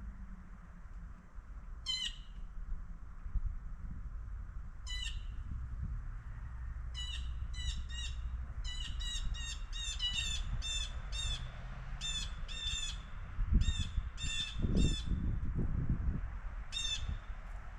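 A bird giving short, harsh, squawking calls: single calls about two and five seconds in, then a fast run of about three calls a second, and one more near the end. A low rumbling noise runs underneath and swells in a few heavier surges shortly before the end.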